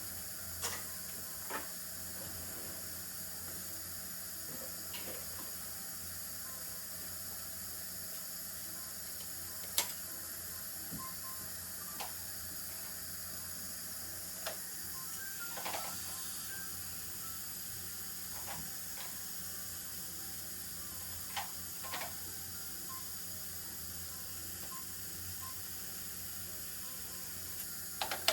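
Steady hiss and low hum of dental unit equipment running in the operatory, with a few light clicks and taps of instruments scattered through it.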